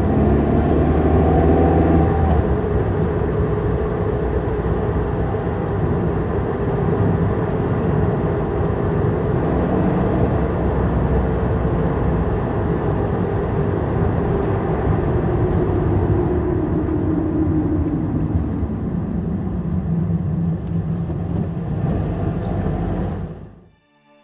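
Steady low rumble of a running motor vehicle, with a faint pitch drifting slowly lower, cutting off suddenly near the end.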